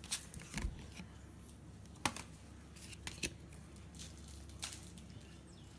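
Basketball trading cards being handled and flipped through: about half a dozen scattered sharp clicks and snaps of card stock.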